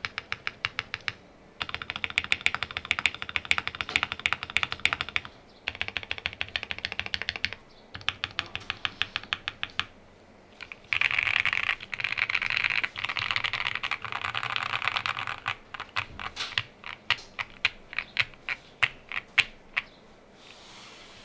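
QK65 mechanical keyboard with lubed Gateron Oil King linear switches on an FR4 plate, full foam and IFK HIVE keycaps, typed on in fast runs with short pauses. The densest, fastest run falls in the middle, and after it the typing slows to separate keystrokes, a few a second, that stop shortly before the end.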